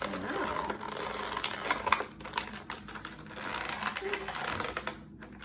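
Plastic toy packaging and small hard plastic figures being handled and unpacked: rapid, irregular small clicks and rattles.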